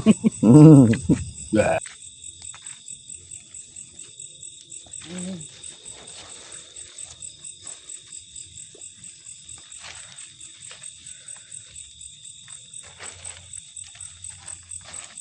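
Insects chirping in a steady high trill, about three or four pulses a second. A loud voice cuts in over it during the first two seconds.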